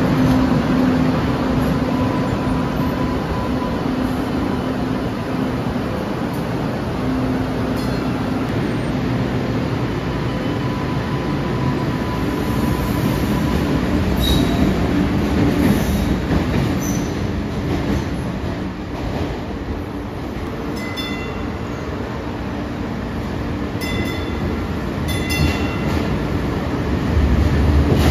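MBTA Green Line light-rail trains in an underground station: a steady rumble and hum from a train on the tracks, with a few short high squeals about three-quarters of the way in. The rumble grows louder near the end as a train pulls in.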